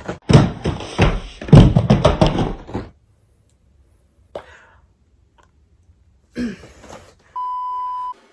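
Clattering knocks and thuds for about three seconds, like things being handled and set down, then quiet with a single click. Near the end comes a short, steady electronic beep of just under a second.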